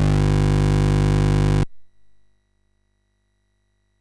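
Commodore Plus/4 TED sound-chip chiptune ending on a steady held square-wave tone that cuts off suddenly about one and a half seconds in, followed by near silence.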